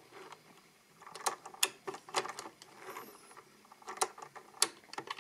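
Archimedes Model D mechanical calculator's crank being turned by hand, its stepped drums and gearing giving an irregular run of light metallic clicks that starts about a second in, the sharpest near four and four-and-a-half seconds.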